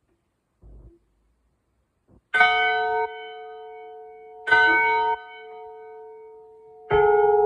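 Church bell struck three times, about two seconds apart, starting about two seconds in; each stroke rings on with a steady tone that carries to the next. A couple of faint knocks come first.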